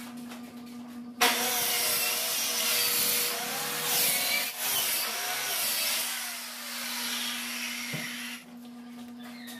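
Corded circular saw starting up about a second in and ripping along a plywood sheet, its motor whine dipping and rising as the blade is loaded; it stops shortly before the end.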